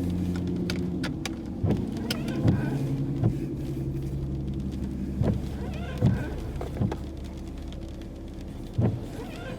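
Car interior while driving: a steady engine and road drone whose pitch steps up and down a few times, with irregular sharp knocks on the body.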